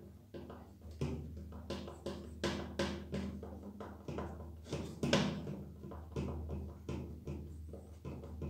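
Irregular plastic clicks and knocks, a few a second, from handling a Nilfisk G3 pressure-washer spray gun as its housing is fitted together, over a steady low hum.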